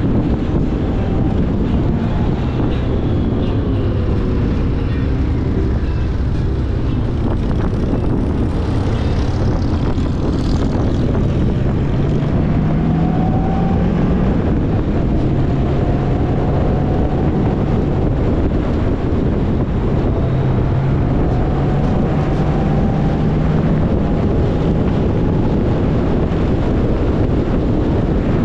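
Motorcycle engine running at road speed under loud, steady wind rush, its pitch rising a few times.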